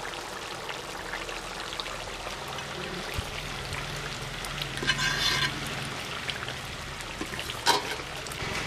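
Chicken gravy boiling in an open steel pot over a wood fire, a steady bubbling hiss, while steel tongs stir it. There is a brief louder rasp about five seconds in, and a few light clicks of the tongs against the pot near the end.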